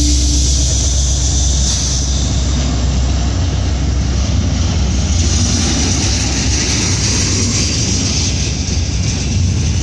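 Double-stack intermodal container well cars of a freight train rolling past on the rails: a loud, steady low rumble of wheels on track.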